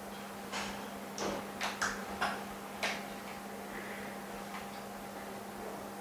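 A steady electrical hum, with a handful of short, sharp clicks and scrapes in the first half, like small tools or parts being handled on a hard work surface.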